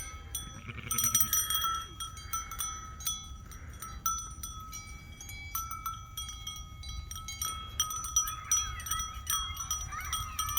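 Metal wind chimes ringing, struck again and again, with several long, steady, overlapping tones. Faint sheep bleats come in near the end.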